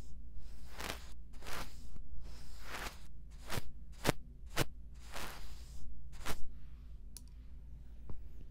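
A makeup brush stroked across the iPad's microphone: a run of short, close swishes, about one or two a second, some sharper than others. After about six seconds it goes quieter, with a few faint ticks.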